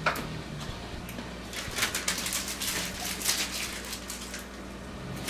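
Plastic bags crinkling and rustling in short bursts as they are handled and twisted closed, over a low steady hum.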